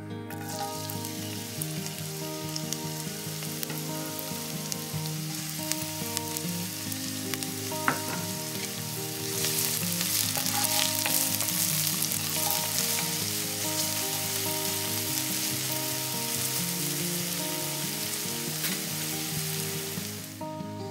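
Chopped onion sizzling in hot oil in an enamelled cast-iron pot, stirred with a wooden spoon; the sizzle gets louder about halfway through, and a single sharp knock comes a little before that. Soft background music underneath.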